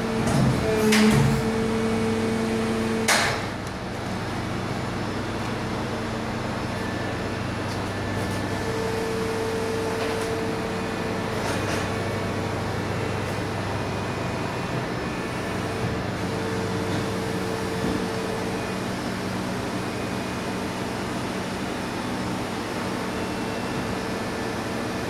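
KraussMaffei CX injection moulding machines running: a steady mechanical hum with several held tones, one mid-pitched tone coming and going every several seconds. Louder for the first three seconds, with two sharp clacks about one and three seconds in.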